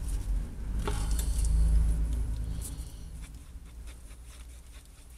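A stick scraping and clicking in a small metal bowl as marble resin and hardener are stirred together. Under it is a low rumble that swells over the first two seconds and then fades away.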